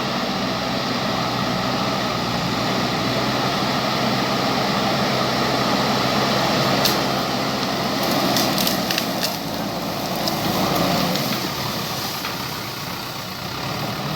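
JCB backhoe loader's diesel engine running steadily, with a cluster of sharp clicks and knocks about seven to nine seconds in.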